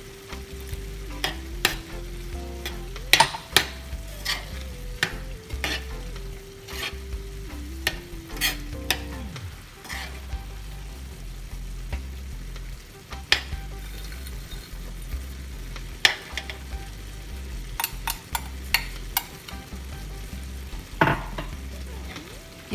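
Minced meat sizzling in a pot, with frequent sharp clicks and knocks of a spoon against the pot as peas and water are added and stirred in.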